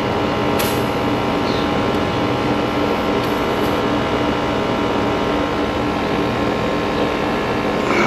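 Air-conditioning condensing unit running steadily, its compressor and condenser fan making an even hum with several fixed tones. A single short click comes about half a second in.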